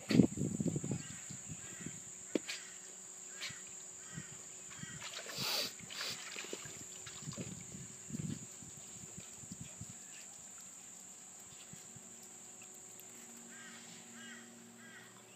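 A steady high insect drone. Scattered soft knocks and rustles are loudest in the first second, there is a short hiss about five and a half seconds in, and a few faint bird chirps come near the end.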